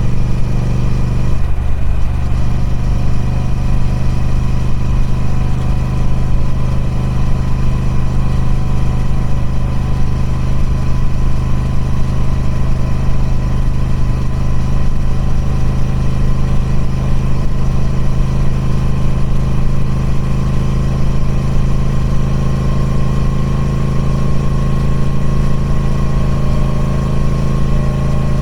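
Triumph Speed Twin 1200's 1200cc parallel-twin engine through its stock exhaust, running steadily at idle. The engine note drops slightly about a second and a half in, then holds even.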